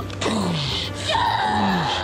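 A man's voice making two drawn-out falling groans over background music.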